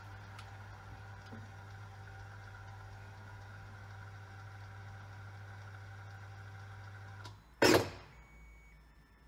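Top-loading washing machine running with a steady hum, which cuts off about seven seconds in. Just after, a loud, short burst of noise.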